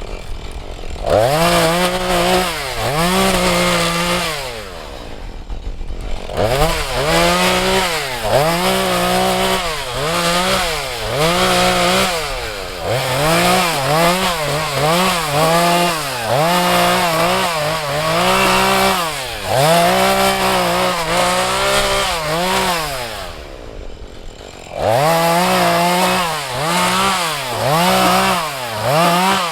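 Husqvarna 435 two-stroke chainsaw running hard, its engine pitch rising and falling about once a second. It drops back toward idle twice, about five seconds in and again near the end.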